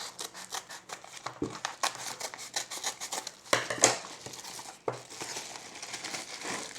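Mail-order package being opened by hand: packaging crinkling and rustling in quick irregular bursts, with a few louder sharp knocks or rips.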